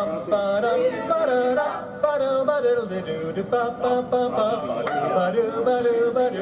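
Mixed chorus of men and women singing a song through stage microphones and a PA system.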